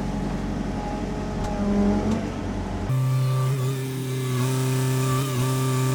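A low rumble, then about three seconds in an abrupt switch to the steady drone of a Sany SY50U mini excavator's diesel engine running.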